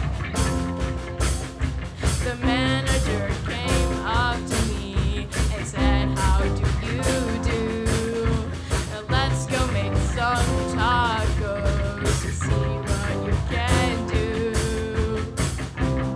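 Rock band playing live: a girl sings lead over electric guitar, bass guitar, keyboard and drums keeping a steady beat.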